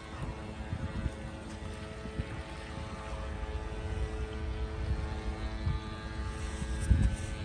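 Small electric motor of a model amphibious RC truck running with a steady whine, over irregular low bumps and rumbles.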